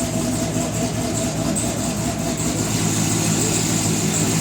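Dodge Challenger engine idling steadily with an even, deep rumble.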